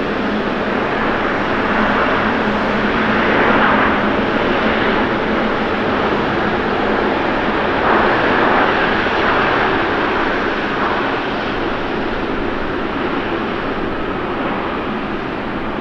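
Jet engine noise from an Airbus A350-900 with Rolls-Royce Trent XWB engines during its landing rollout, a steady rush that swells louder about three to four seconds in and again about eight seconds in.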